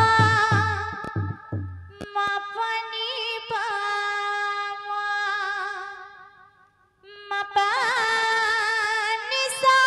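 Devotional kirtan singing by a woman, long held notes with a wavering pitch, with drum strokes under the first two seconds. The music fades to a brief gap about seven seconds in, then the singing resumes.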